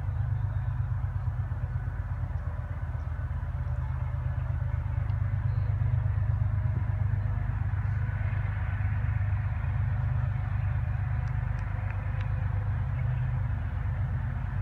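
GEU20 (GE U20C) diesel-electric locomotive approaching at a distance, its engine a steady low throb with a fainter hiss of the train over it that grows a little louder midway.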